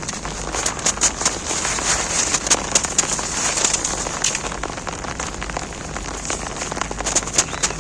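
Rain falling steadily on an umbrella, mixed with many short, crisp crunches of snow being crumbled.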